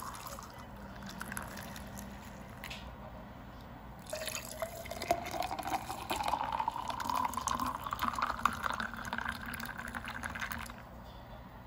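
Watermelon juice poured in a thin stream into a tall glass over ice cubes. It is faint at first, then from about four seconds in a louder filling sound whose pitch rises steadily as the glass fills, stopping shortly before the end.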